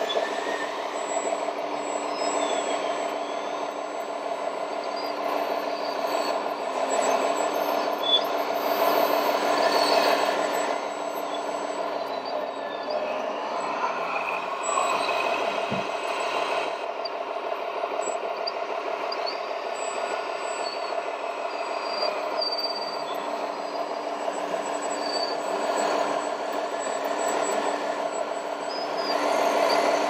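Radio-controlled scale trucks and a model wheeled excavator running, giving a steady engine-like drone with held tones. A few short high beeps and hisses come over it.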